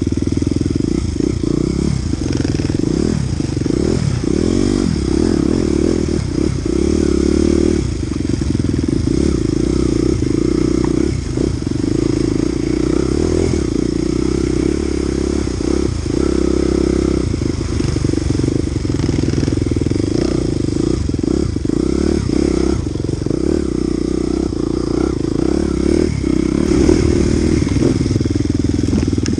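Dirt bike engine running continuously under the rider, its pitch rising and falling with the throttle while riding off-road.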